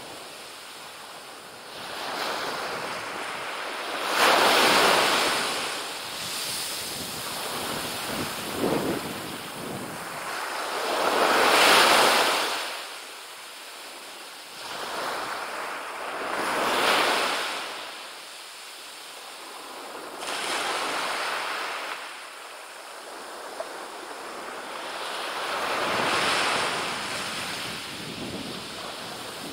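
Small waves breaking and washing up a sand beach, the surf swelling and fading about every four to five seconds.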